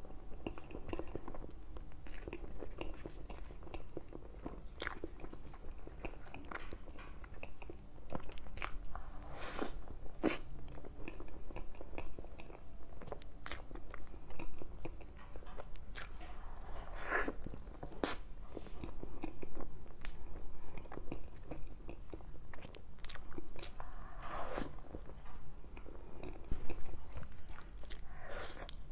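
Close-up chewing and biting of a soft matcha crepe layer cake: irregular mouth clicks and smacks, with a few louder bites spaced through.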